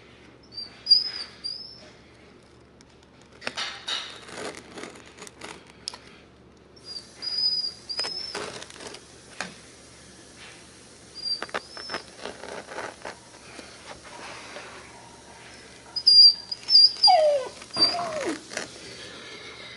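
Dog whining and yelping: short high-pitched whines come again and again, and two louder falling yelps come near the end. Between them are clicks and rustling as the carpet is cut and handled.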